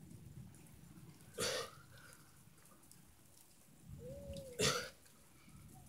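Two short, sharp breaths or grunts, about three seconds apart, from a man straining through push-ups. Just before the second, a dove coos once.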